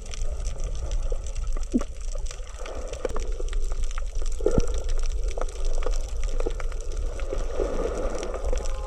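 Underwater reef sound: a dense, steady crackle of fine clicks, which the uploader takes for the coral 'breathing' and for fish biting coral. Over it run gurgling, bubbly water noises and a couple of short swoops that fall in pitch.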